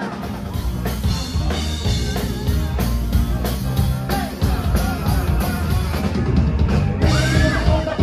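Rock band playing live, with a drum kit, heavy bass and a male singer's voice.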